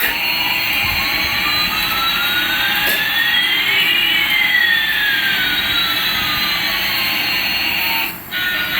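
Jet airliner engine sound: a steady hiss with a whining tone that rises while another falls, the two crossing about halfway through. It cuts off suddenly near the end.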